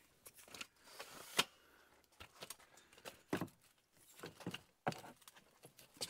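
Scattered metallic clicks and clanks of a rooftop tent's ladder being handled and swung out to unfold the tent, a sharp knock every second or two.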